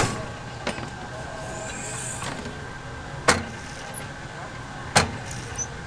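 Shrimp-cracker puffing press at work: two loud, sharp bangs from its heated metal plates, a little over three seconds in and again about a second and a half later, as the press clamps and pops open to puff the cracker. A steady machine hum runs underneath, with a small click under a second in.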